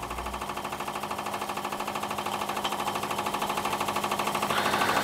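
Scratch-built model overtype steam engine running under steam, its cylinder beats coming as a fast, even rhythm that grows gradually louder.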